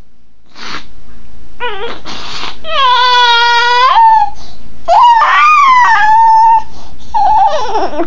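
A three-and-a-half-month-old baby with bronchiolitis gives two short harsh coughs, then breaks into loud crying: a long wail about three seconds in, another about five seconds in, and a third near the end.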